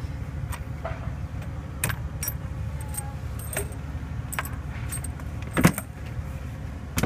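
Light metallic clinks and taps from metal objects being handled, scattered irregularly, with one louder knock about five and a half seconds in, over a steady low hum.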